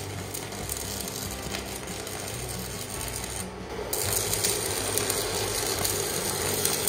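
Stick-welding arc from an EENOUR MIG-120L burning a welding rod: a steady crackle and sputter, breaking off briefly a little over three seconds in and then striking again louder. The welder puts the rough running down to damp electrodes and too much current.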